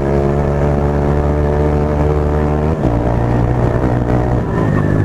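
Bajaj Pulsar NS200 single-cylinder engine running steadily under way. About three seconds in, the revs drop sharply.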